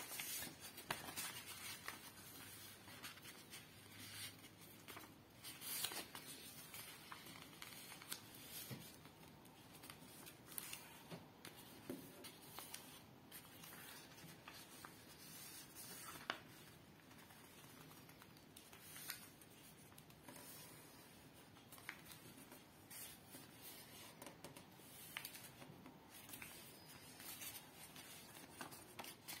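A sheet of paper being folded and creased by hand on a tabletop: faint, irregular rustles and crisp crackles as the paper is handled and fingers press the folds flat.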